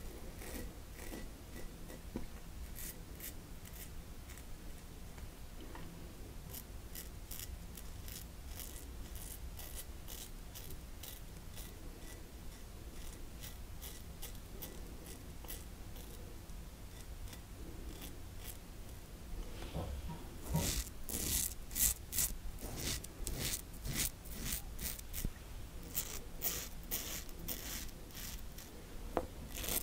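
Tatara Masamune double-edge safety razor scraping through stubble on a lathered face in short strokes. It is sparse at first, then a quicker, louder run of strokes from about two-thirds of the way in.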